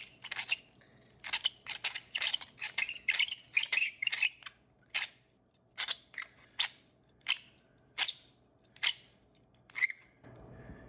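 Pipe reamer scraping carbon cake from the inside of a briar pipe bowl: a quick run of scraping strokes at first, then single strokes spaced out less than a second apart.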